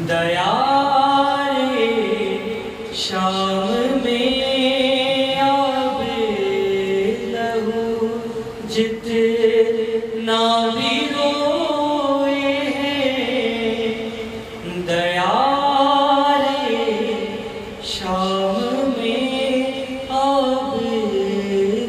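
Male voice chanting a noha, an unaccompanied Urdu mourning lament, into a microphone in long phrases of held, wavering notes, each phrase opening with a rising glide.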